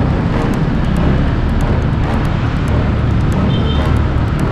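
Steady wind rush and road and engine noise of a motorcycle under way, picked up by a camera on the moving bike.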